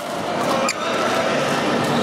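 Badminton racket strikes on a shuttlecock during a fast doubles rally: a sharp crack right at the start and another about three-quarters of a second in, over a steady murmur of voices in the hall.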